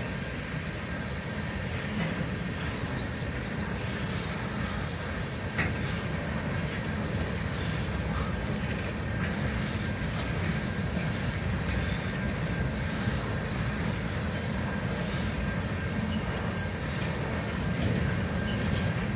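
Covered hopper freight cars rolling past on the rails: a steady low rumble of wheels on track, with a few light clicks and a faint steady high tone over it.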